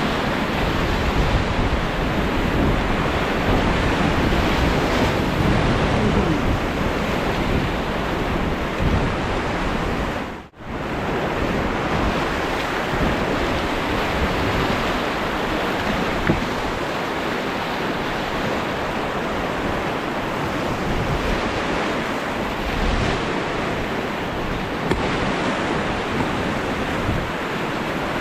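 Steady rush of a fast-flowing river, with wind on the microphone; the sound briefly cuts out about ten seconds in.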